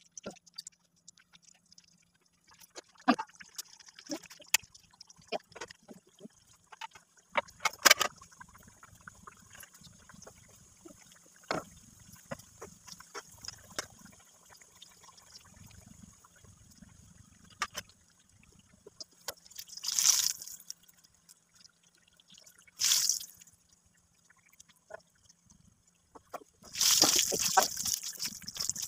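Aloo samosas deep-frying in hot oil in a wok: a faint sizzle with scattered pops and crackles, rising into a few short bursts of louder sizzling and a longer loud stretch near the end.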